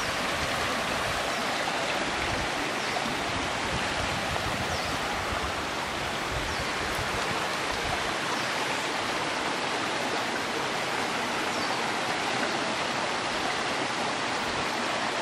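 Shallow mountain stream flowing over rocks: a steady rush of running water.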